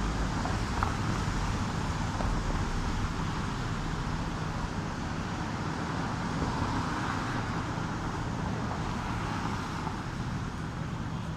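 Steady city street ambience: traffic noise with a low rumble, with no single event standing out.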